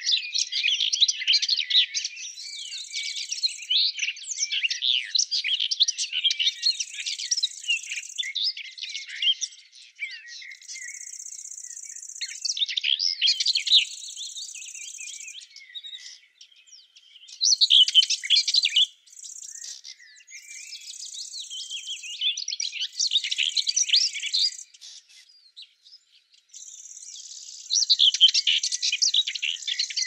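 Small songbirds chirping and twittering in quick, busy bursts that pause now and then. Over them, a high, steady insect trill starts and stops every few seconds.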